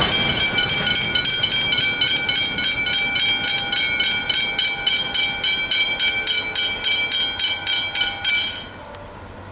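Level crossing warning bell ringing rapidly, about four strokes a second, while the rumble of the passing train fades away. The bell stops abruptly near the end as the crossing clears.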